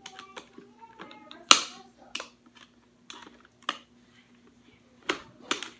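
Sharp clicks and snaps of a cutting tool working at a tough plastic zip tie on a toy blaster, about six of them, the loudest about one and a half seconds in.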